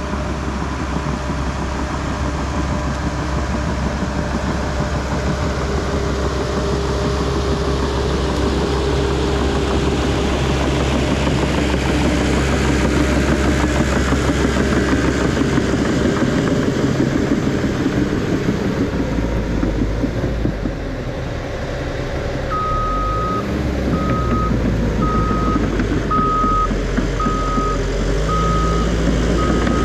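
Bulldozer's diesel engine running as it pushes debris, the engine note shifting about two-thirds of the way in. Over the last several seconds a backup alarm beeps at a steady pace, a little faster than once a second, as the dozer reverses.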